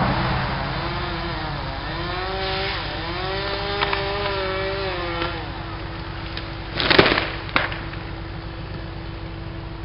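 Chainsaw cutting through the trunk of a tall evergreen, its pitch rising and falling with the cut, then dropping to idle about five seconds in. About seven seconds in the cut-off treetop crashes to the ground, with a second smaller thump just after, while an engine keeps idling.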